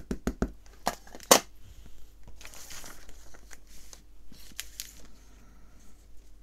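Craft stamping handled by hand: a few quick taps of an ink pad on a clear rubber stamp, then two sharper knocks, the loudest about a second and a half in, then paper sliding and rustling on the work surface.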